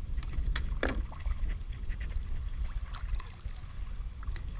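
Wind rumbling on the microphone, with scattered short clicks and splashes of water lapping against a plastic kayak's hull.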